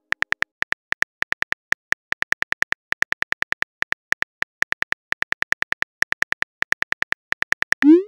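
Phone keyboard typing clicks: a rapid, uneven run of short ticks, one per letter as a text message is typed. It ends with a short rising swoosh as the message is sent.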